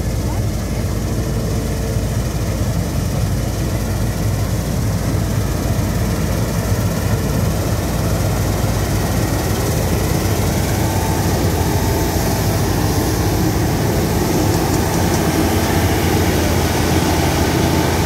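Claas Lexion 770 Terra Trac combine harvester working through standing wheat, a steady heavy engine and threshing drone. It grows slowly louder as the machine comes close and passes, and a rushing hiss builds over the second half as straw and chaff are thrown out behind it.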